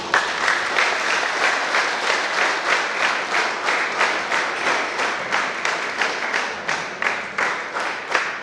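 Audience applauding, the clapping falling into an even rhythm of about three claps a second.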